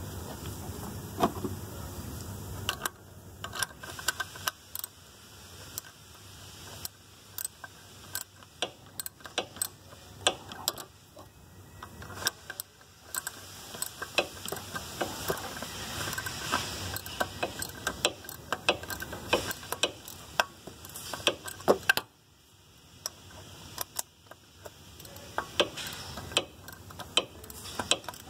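Hand ratchet wrench clicking in quick irregular runs as a bolt on the car's underside is turned, with a short lull about three-quarters of the way through.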